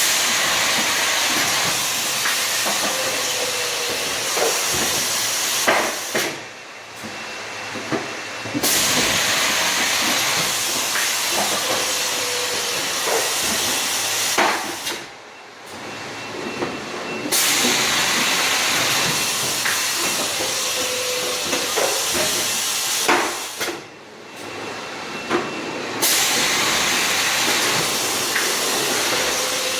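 Automatic carton erector and taping machine cycling: a steady air hiss broken by short pauses about every eight and a half seconds, with mechanical clicks and knocks at each change of cycle.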